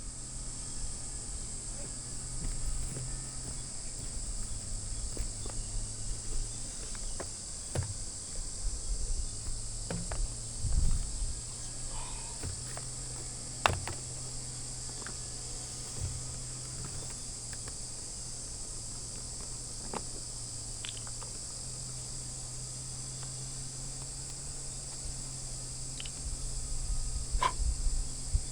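Steady high-pitched insect chorus, crickets or similar, with a low steady hum underneath and scattered light knocks and clicks.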